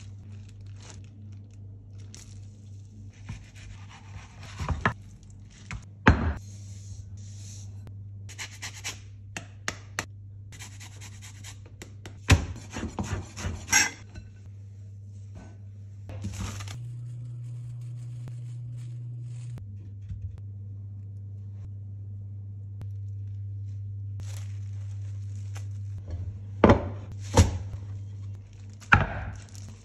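Kitchen food-prep handling on a wooden cutting board: scraping and rubbing, including a chef's knife scraping chopped dill across the board about halfway through, with scattered sharp knocks, over a steady low hum. Near the end come a few louder knocks and the crinkle of plastic film being handled over a glass dish.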